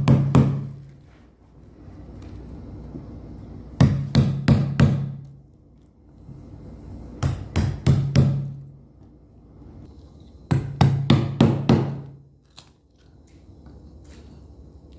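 Hammer blows working at a stainless screw nail buried in chinaberry wood. They come in four quick bursts of three to five strikes, each with a short low ring, separated by pauses of a few seconds.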